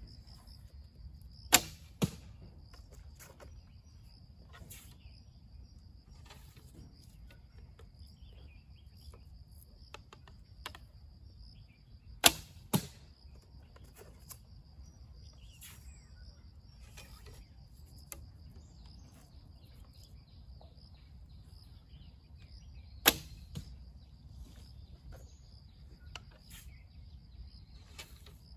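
Manchu bow shot three times, about ten seconds apart: each release is a sharp snap of the string, and the first two are each followed about half a second later by a second, lighter crack. Small clicks of arrow handling come between the shots, over a steady high insect chirring.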